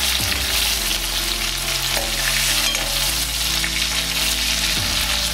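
Chicken pieces sizzling as they fry in ghee in a steel kadai. A metal ladle stirs and turns them, scraping or clinking against the pan a few times.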